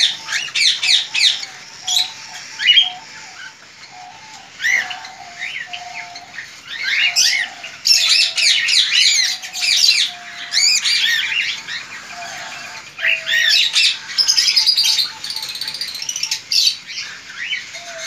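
Caged cockatiels and other aviary birds chirping and squawking throughout, many calls overlapping, with short lower notes repeating underneath.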